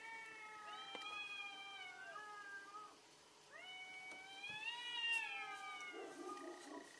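Two domestic cats caterwauling at each other in a face-off. The long, wavering howls come one after another, with a short break about three seconds in. These are the drawn-out threat yowls of cats squaring up to fight.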